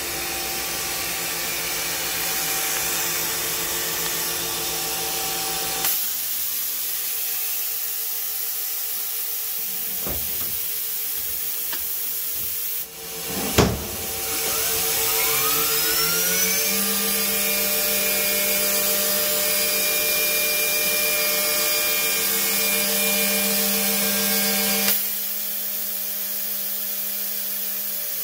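Mori Seiki MT-1500SZ CNC turn-mill center running with a steady mechanical hum and hiss. About halfway through comes a sharp clunk, then a rising whine as a spindle spins up. The whine holds a steady pitch and cuts off a few seconds before the end.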